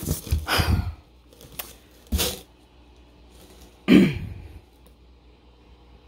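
Short bursts of cardboard box and packaging being handled as a digital keyboard is worked out of its box, with a loud strained grunt of effort about four seconds in.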